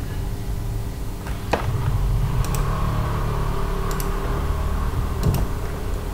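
Computer mouse clicking sharply about four times, some as quick double clicks, over a steady low hum of room noise.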